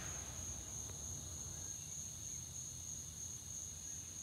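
Insects buzzing at one steady high pitch, with a faint low rumble underneath.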